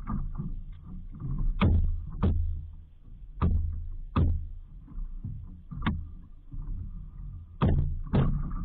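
Irregular knocks and thumps on a small outrigger boat as someone shifts about on it pulling on swim fins, about one a second, over a steady low rumble.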